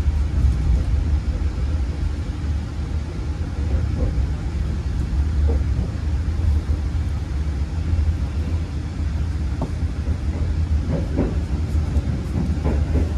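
Steady low rumble of a moving passenger train heard from inside the coach: a new-generation stainless steel economy carriage running on the rails.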